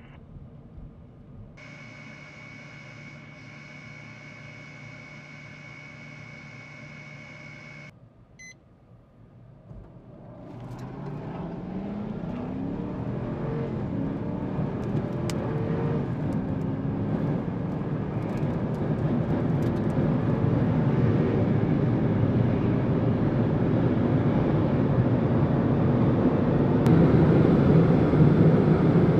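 Turbofan jet engine of a U-2S: a steady high whine for several seconds, then, after a short lull, a roar that builds as thrust comes up for the takeoff run, with tones gliding up in pitch and the sound growing steadily louder to the end.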